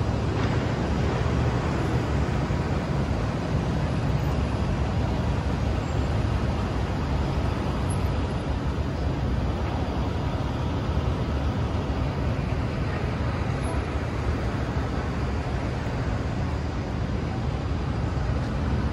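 Steady city street traffic: a continuous low rumble of motor vehicles running and passing.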